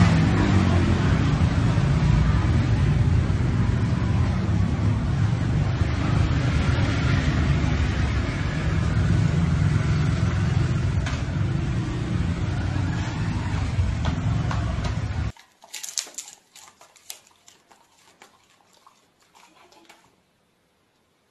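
Street traffic: a motor scooter and cars driving past close by, with a steady engine and tyre noise. It cuts off suddenly about fifteen seconds in, leaving a few faint clicks and then near silence.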